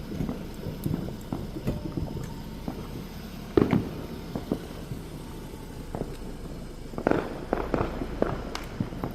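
Fireworks going off: scattered pops, a sharp bang about a third of the way in, and a quick cluster of bangs and crackles near the end.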